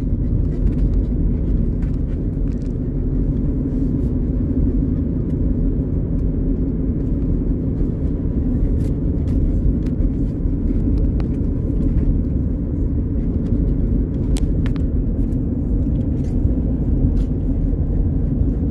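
Car driving, heard from inside the cabin: a steady low rumble of engine and road noise. A couple of faint clicks come about two-thirds of the way through.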